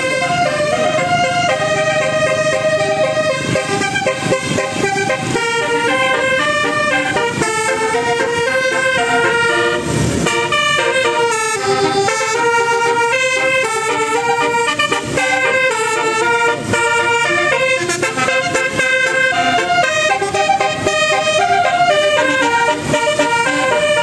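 Bus telolet multi-tone horn playing a quick melody, the notes stepping up and down every fraction of a second. A louder, deeper blast comes about ten seconds in.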